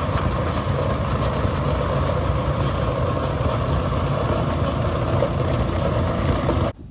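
A heavy engine running steadily at an even speed, cutting off suddenly near the end.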